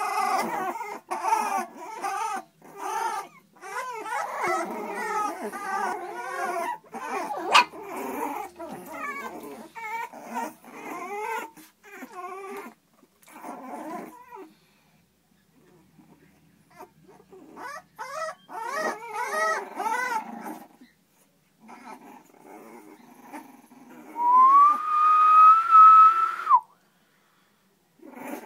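A litter of Staffordshire Bull Terrier puppies whining and whimpering, many short high cries tumbling over one another, with a few pauses. Near the end one pup gives a single long whine, rising at first and then held for about two seconds.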